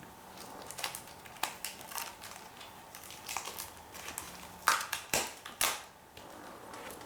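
Plastic comic book bags crinkling and crackling as comics are handled, in short irregular rustles, with the loudest crackles about five seconds in.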